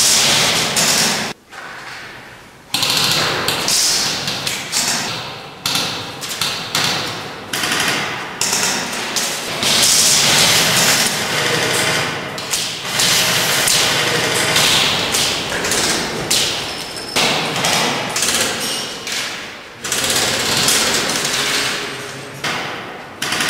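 Airsoft gunfire in an indoor hall: repeated sharp cracks and thuds at an irregular pace, each echoing off the walls.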